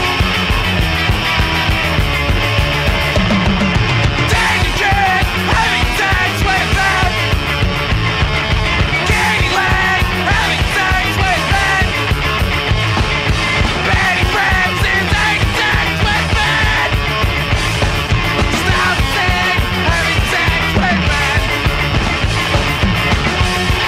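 Recorded punk rock song played by a band: loud, fast, dense drums and guitars with no breaks.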